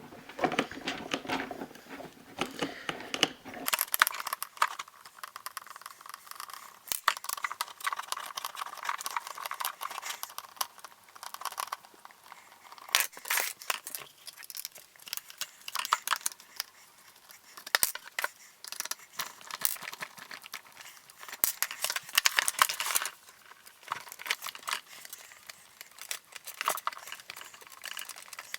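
Time-lapse audio of a Traxxas Rustler RC car being taken apart: a quick jumble of high-pitched clicks, crackles and rattles from parts and tools being handled, coming in clusters.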